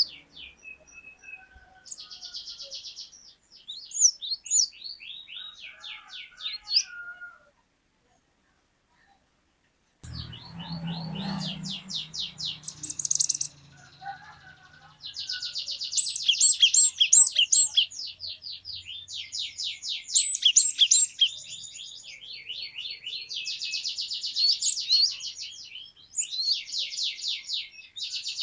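Cinereous tit (glatik batu) singing long, fast trills of repeated high notes in phrases of several seconds, broken by a dead-silent gap of about two seconds near a third of the way through.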